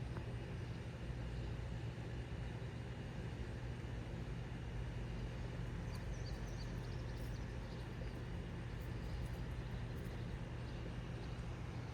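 A steady low mechanical hum, like an idling engine, over a constant background rush, with a few faint high chirps about halfway through.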